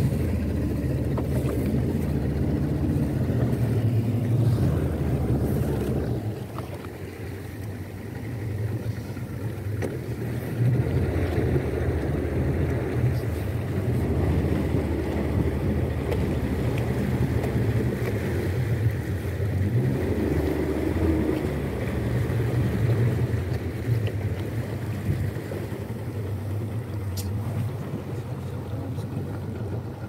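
A speedboat's 75-horsepower outboard motor running steadily under way, a low even drone. The level drops for a few seconds about six seconds in, then picks up again.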